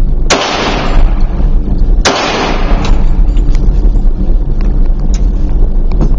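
Two shots from an HK Mark 23 .45 ACP pistol, about a second and a half apart, each echoing off the concrete of an indoor range, over a steady low rumble.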